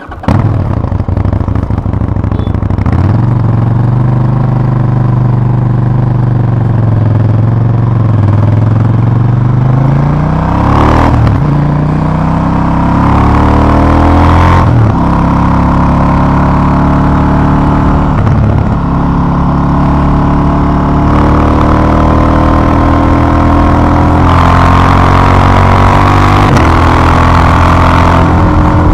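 KTM 790 Duke's parallel-twin engine through its stock exhaust, pulling away and riding on: the engine note climbs under throttle and drops at each gear change or throttle roll-off, several times over.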